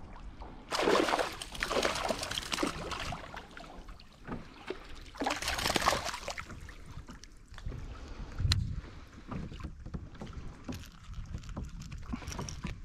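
Hooked fish thrashing and splashing at the water's surface beside a kayak, in two main bouts: one about a second in and a shorter one around five to six seconds in.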